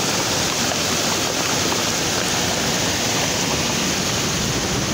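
Heavy monsoon rain pouring down and muddy floodwater rushing along a street, a steady hiss of water with no break.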